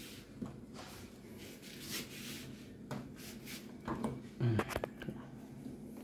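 Program selector dial of a front-loading washing machine being turned by hand, giving a run of small clicks and knocks, with a louder cluster about four and a half seconds in.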